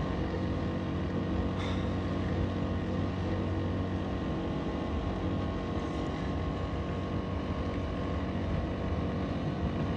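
Small car's engine running steadily while driving, a constant even drone with no change in pitch.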